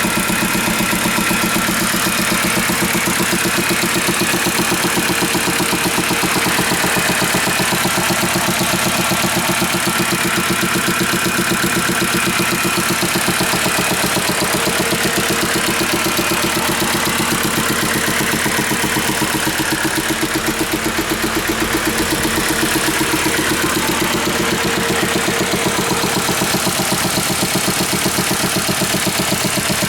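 Jeep Grand Cherokee 3.1 five-cylinder turbodiesel engine idling steadily with a rhythmic knock, which the owner traces to the air intake.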